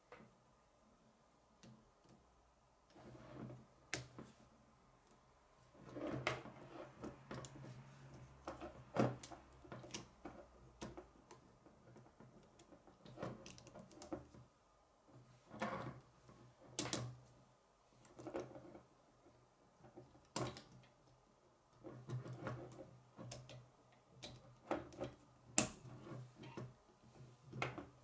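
Plastic K'nex rods and connectors clicking and snapping together as they are fitted onto a model by hand. The clicks are sharp and irregular, some coming in quick clusters, with light plastic handling noise between them.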